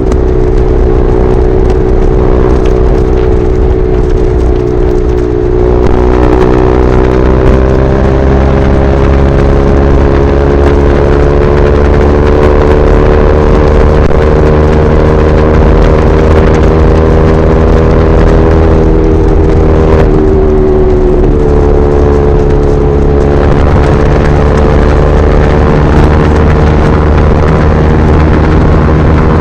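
KTM RC 390's single-cylinder engine through an SC Project replica slip-on exhaust, pulling steadily at highway speed. The pitch sags a little at first, then climbs slowly, with a brief dip about twenty seconds in before it picks back up.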